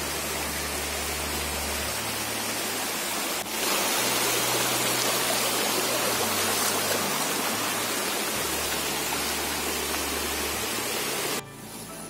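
Rushing water of a small mountain stream running over rocks, a steady hiss that grows louder about three and a half seconds in and cuts off shortly before the end.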